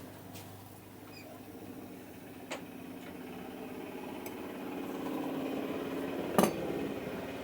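A motor hums steadily, swelling a little in the second half, with a small sharp click about two and a half seconds in and a louder knock about six seconds in.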